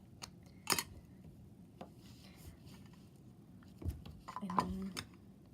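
A few sharp clicks and taps with light rubbing between them, from a wet face-painting brush and paint containers being handled; the loudest click comes a little under a second in. A short hum of voice comes a little after four seconds.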